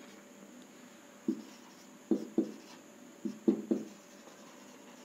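Marker pen writing on a whiteboard: about six short, sharp strokes and taps, several in quick pairs, as letters are written.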